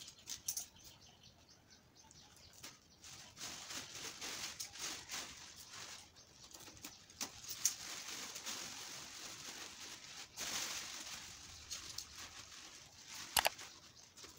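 Thin black plastic bag rustling and crinkling as it is pulled and unwrapped from around a potted plant's root ball. The rustling starts in scattered crackles, is busiest through the middle, and ends with a sharp snap near the end.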